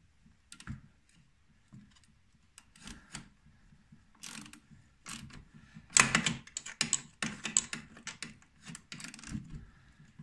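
Ratchet wrench clicking in short irregular runs as a snowmobile's rear track adjuster bolt is turned to tighten the track, the clicking busiest about six seconds in.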